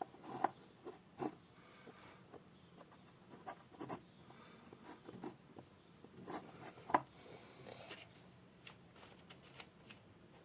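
Scattered light taps, clicks and rubbing from hands working on a small plasticine figure, with a sharper tap about half a second in and again about seven seconds in.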